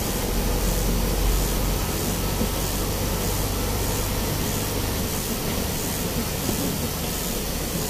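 Truck engine running low and steady, heard from inside the cab as the truck rolls slowly over wet pavement, with an even hiss of rain and tyre spray over it.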